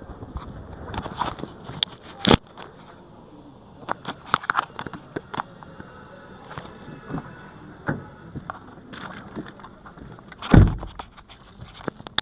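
Footsteps and the handling of a Toyota Wish's door: scattered clicks and scrapes with a sharp click a couple of seconds in, then a heavy low thump near the end as the car door is shut.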